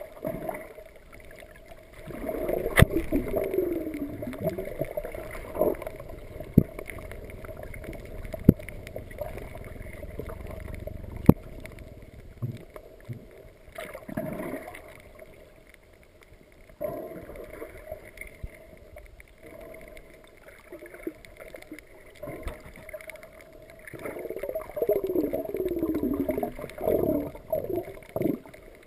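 Muffled underwater sound heard through a camera's waterproof housing: gurgling and bubbling water that swells louder twice, with a few sharp clicks.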